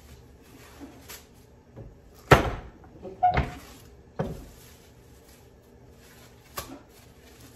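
Wooden tortilla press worked by hand: wood knocking on wood as its hinged lid and lever handle are shut and lifted, three loud clunks about a second apart with a few lighter knocks before and after.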